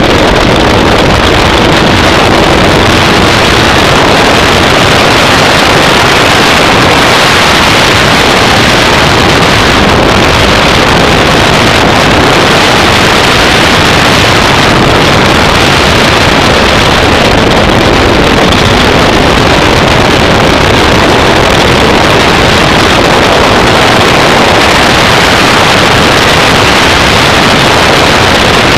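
Off-road race vehicle driving at speed: a loud, unbroken rush of engine and wind noise with no distinct engine note standing out.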